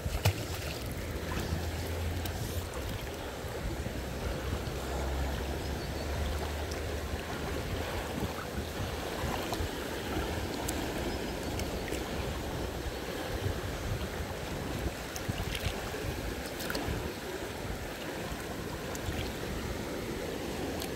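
Flowing river water, a steady rushing.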